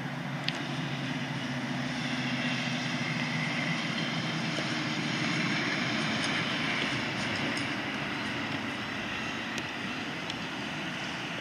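A D1-class Siemens Combino tram passing along the road amid steady traffic noise, with a low hum. The sound swells to its loudest about halfway through and eases off again.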